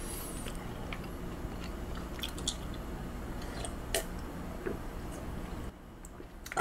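A man chewing a mouthful of raw beef close to the microphone: soft wet mouth sounds with scattered small clicks and smacks, and one slightly louder click about four seconds in.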